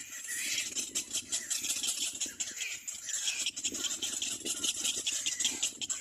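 Little black cormorant chicks calling in the nest: a fast, rattling chatter that goes on without a break.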